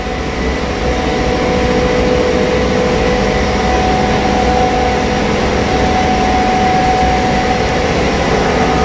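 Bitzer OSNA open-drive ammonia screw compressor running steadily: an even, loud mechanical hum with a couple of steady tones held through it.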